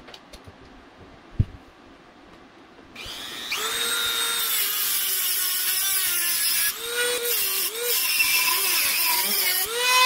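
A few light handling clicks and a single knock, then a rotary tool with a cutoff wheel spins up about three seconds in and cuts through a quick-release skewer rod. Its high whine sags and recovers several times as the wheel bites into the metal.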